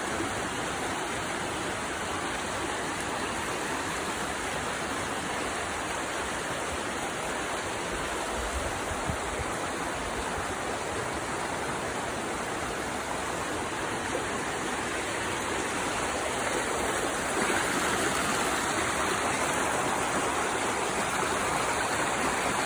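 Steady rush of storm water from Tropical Storm Elsa's heavy rain, growing somewhat louder about three quarters of the way through.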